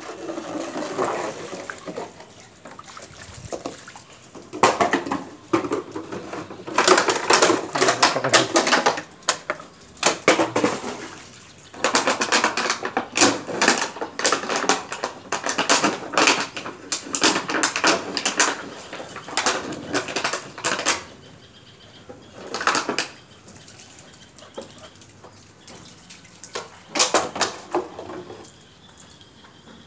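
Siberian Husky chewing and pushing a crushed plastic bottle about, the thin plastic crackling and crunching in repeated bursts, with a quieter stretch about two-thirds of the way through.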